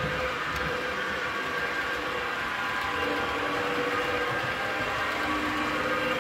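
Model train of passenger coaches and an electric locomotive rolling past on the layout's track: a steady rumble and whir of wheels and motor.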